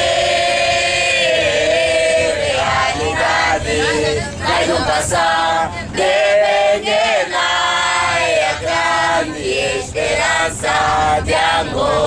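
A group of young men and women singing together unaccompanied in a choir-like chorus, over the low rumble of the moving bus.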